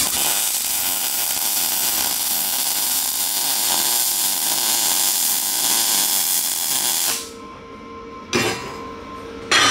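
Wire-feed welder arc crackling and hissing steadily for about seven seconds while a bead is run on steel plate, then cutting off. Two sharp metallic clanks follow near the end.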